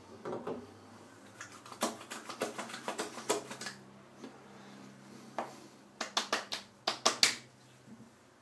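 Hands patting and slapping freshly shaved skin, applying post-shave: two quick runs of sharp pats, the second near the end and the loudest.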